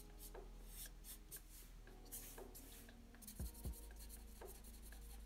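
Black marker scratching on paper in quick, short hatching strokes, faint, with two soft low thumps about three and a half seconds in.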